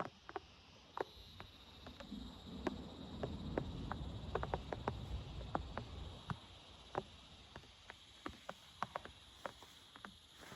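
Scattered raindrops tapping one by one, a few each second at uneven intervals, over a faint steady hiss and a thin, steady high insect-like tone.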